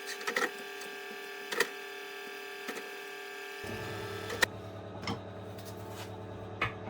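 Scattered small clicks and knocks of parts and tools being handled while the hob's fan motor and plastic duct are taken apart, over a steady hum.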